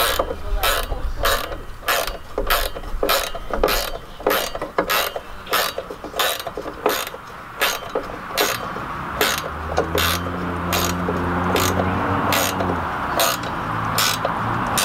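Hand ratchet wrench clicking as it is worked back and forth to drive a fastener and fix the hose hanger to the fence: a regular run of sharp clicks, about three a second, a little slower near the end. A low steady hum comes in about two-thirds of the way through.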